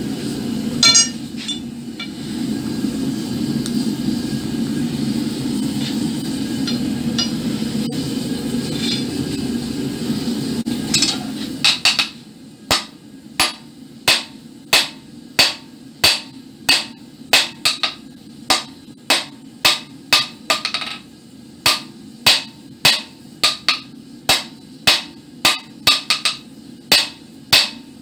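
Hand hammer striking a red-hot iron bar on an anvil in sharp, evenly spaced blows, about three every two seconds, with one short break. The blows follow a steady low rumble with a few light clinks over roughly the first twelve seconds.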